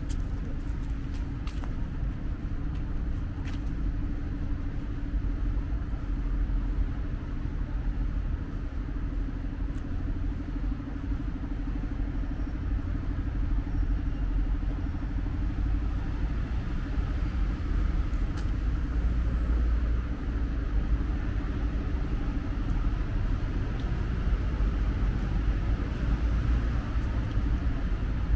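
Steady low rumble of city road traffic, a continuous hum of passing cars and engines with no single vehicle standing out.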